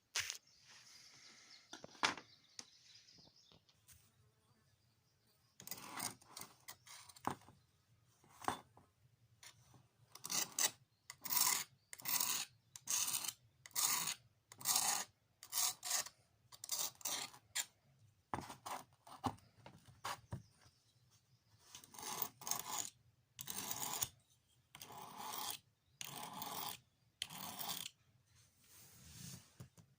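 Repeated rasping back-and-forth strokes of a hand tool on board, about one to two strokes a second, in runs with short pauses between.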